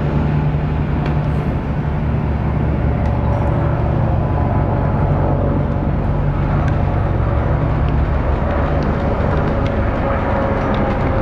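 Monster school bus's engine running steadily as it drives slowly, a deep even drone, with a few faint clicks scattered through it.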